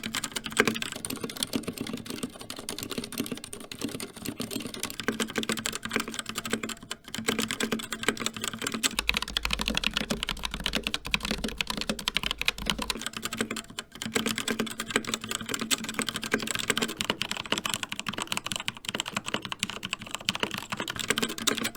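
Continuous fast typing on a succession of mechanical keyboards, one after another, each with a different switch: a CZC Halfling with Cherry MX Silent Red switches, an Asus ROG Strix Scope RX with ROG RX Red switches, and a Keychron K4 with Gateron Brown switches. Brief breaks, about 7 and 14 seconds in, mark the changes from one keyboard to the next.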